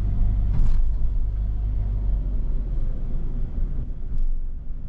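Steady low rumble of a Daihatsu Atrai kei van driving slowly, heard from inside the cabin.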